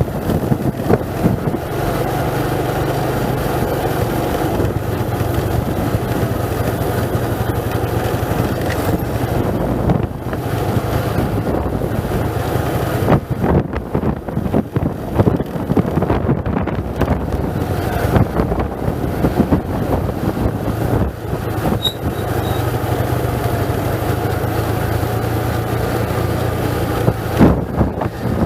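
A vehicle engine running steadily on the way down a steep, rough mountain road, under heavy wind noise on the microphone. Many irregular knocks and jolts from the bumpy road, thickest about halfway through, when the engine hum weakens.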